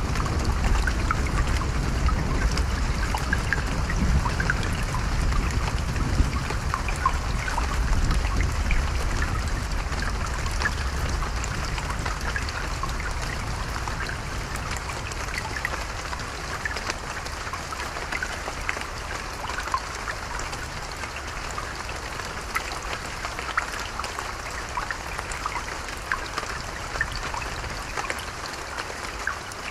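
Stream trickling and babbling steadily, with small splashes and drips. A low rumble of distant thunder dies away over the first half.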